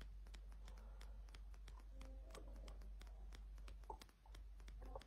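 Near silence: faint room tone with light, fairly regular clicks and a few soft small noises.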